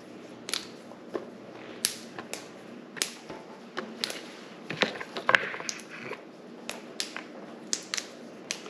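Fresh rattlesnake green beans being snapped by hand, the stem ends broken off: a string of sharp, crisp snaps, irregularly spaced at about two a second.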